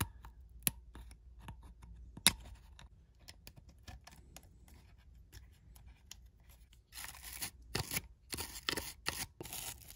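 Toothpick picking and scraping at a corroded battery contact in a calculator's battery compartment: scattered small ticks and clicks, then denser scratching about seven seconds in.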